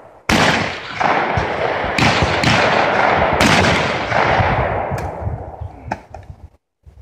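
Shotguns firing at clay targets in a rapid, overlapping series of shots, about half a dozen in the first four seconds, each one echoing away. A few fainter shots follow before it dies down near the end.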